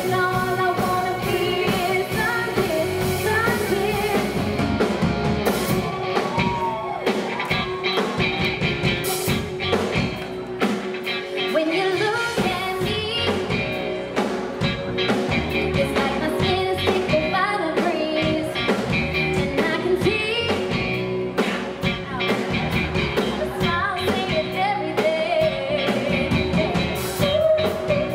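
Live pop-rock band playing, a woman singing lead over drum kit, electric bass and electric guitar.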